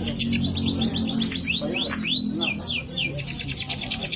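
Yorkshire canary singing: fast trills of quickly repeated falling notes, broken about two seconds in by a few slower arched whistles.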